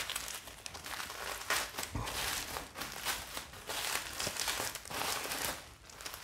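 Plastic wrapping and bubble wrap on a parcel rustling and crinkling as they are handled and pulled open by hand: a run of small, irregular crackles.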